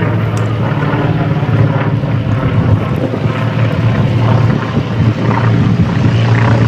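Fairchild PT-19's Ranger inverted inline six-cylinder engine running at taxi power, a steady low propeller drone. It grows slightly louder near the end as the plane taxis closer.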